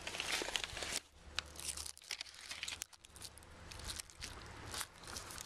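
Plastic release film crinkling and crackling as it is pulled back and handled on a roll of self-adhering ice and water shield membrane, with irregular short crackles and tearing sounds.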